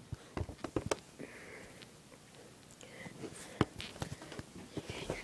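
Scattered light clicks and knocks: several close together in the first second, one sharper knock about three and a half seconds in, and a few more near the end.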